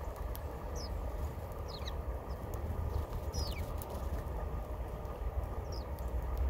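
Small birds giving short, high, falling chirps about five times, over a steady low rumble.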